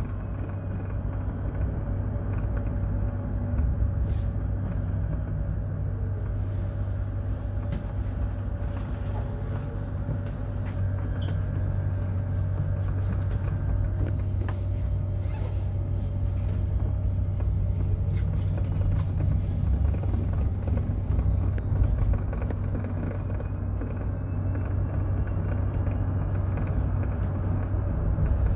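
Mercedes-Benz eCitaro electric bus on the move: a steady low rumble of the running gear and road, with a faint steady hum above it and a faint whine rising near the end.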